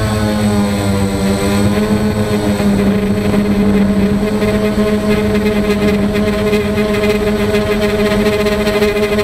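DJI Phantom quadcopter's motors and propellers droning steadily, heard from a camera mounted on the drone as it climbs. The pitch wavers in the first two seconds, then holds steady, with a thin high whine above it.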